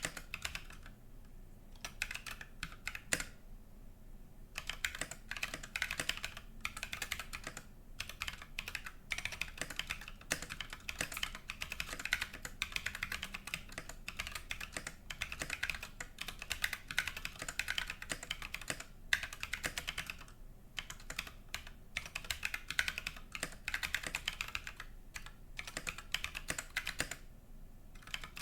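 Fast typing on a custom mechanical keyboard with Holy Panda tactile switches and SA-profile keycaps in a low-profile aluminium case: a dense run of key clacks, broken by a few short pauses.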